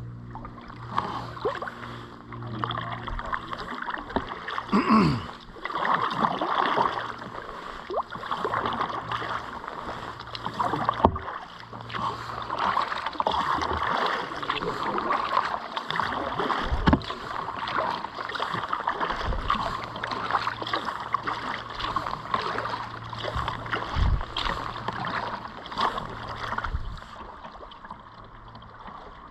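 Kayak paddle strokes splashing, with water rushing over shallow rocks; the splashing swells and fades every second or two, and a few dull knocks come through.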